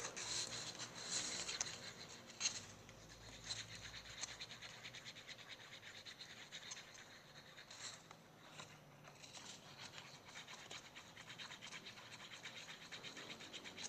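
A mixing utensil stirring shampoo and salt in a container to make slime, heard as faint, quick, repeated scraping strokes.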